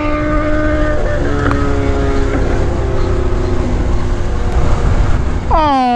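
Motorcycle engine running at a steady cruise, heard from the rider's seat under heavy wind noise on the microphone. The engine note drops slightly about a second in and fades under the wind by the middle.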